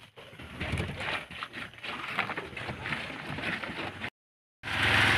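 Concrete-pour site work: irregular knocks and scrapes with faint voices. The sound cuts out briefly about four seconds in and returns as a louder, steady noise with a low hum.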